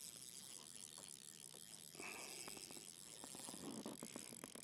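Faint, irregular clicking of a fishing reel being worked while a hooked bass fights on the line; otherwise near silence.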